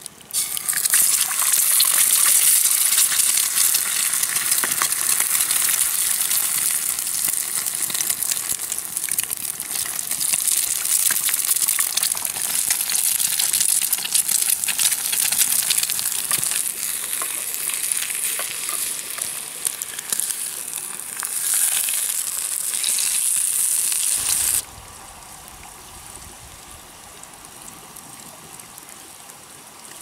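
Food frying in a hot pan: a loud, dense crackling sizzle. It cuts off abruptly about 24 seconds in, leaving a much quieter steady hiss.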